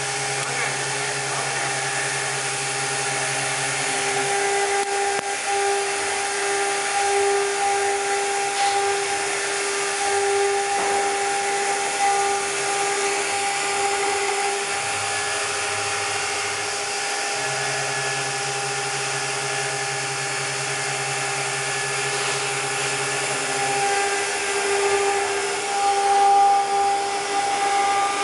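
CNC stone-engraving machine's water-cooled spindle running steadily as its bit carves letters into a stone slab: a steady whine over the hiss of cutting and coolant, with a lower hum that comes and goes.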